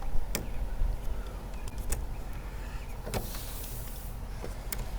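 Several sharp clicks and taps as the metal parts of a keyed doorknob lockset are lined up and pushed into the hole bored in a wooden gate, with a brief rushing noise a little after three seconds in.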